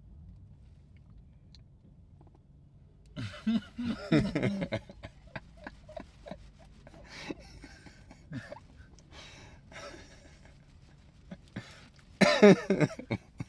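A man's bursts of stifled, snorting laughter: a loud burst about three seconds in and another near the end, with small clicks and rustles in between. A low steady hum underneath.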